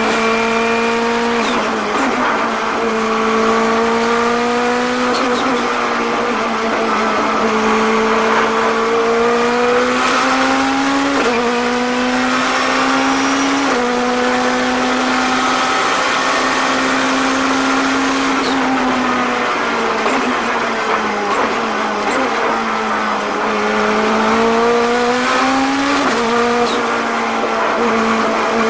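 Turbocharged Honda K22 four-cylinder engine of a Honda NSX race car, heard from inside the cockpit under hard acceleration. Its pitch climbs through each gear and drops sharply at several quick upshifts. About twenty seconds in the revs fall away through braking and downshifts, then climb again.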